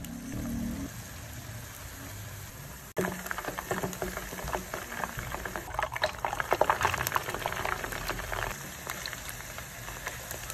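Battered chicken pieces deep-frying in hot oil, a steady sizzle. About three seconds in the crackling turns denser and louder, the busy spatter of the second fry that browns the coating.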